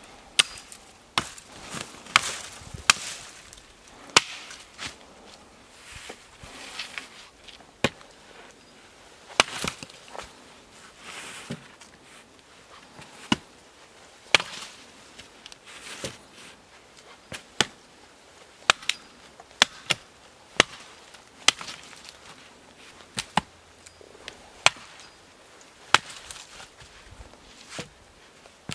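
A hatchet chopping through branches: sharp, irregular blows about one a second.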